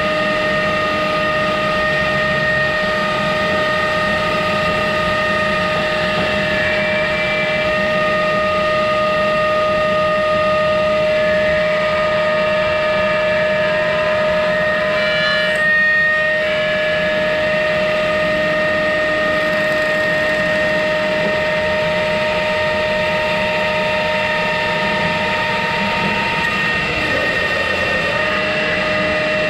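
CNC router spindle running at speed, a steady high whine, with the noise of its spiral bit cutting through wood. The whine dips briefly about halfway through and shifts slightly in pitch near the end as the cut changes.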